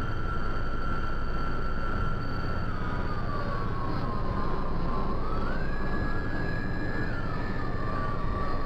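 Minimal industrial noise music made on a synthesizer: a dense, steady wash of noise under a held high tone that slides down a little about three seconds in, climbs higher around five and a half seconds, and drops again near seven seconds.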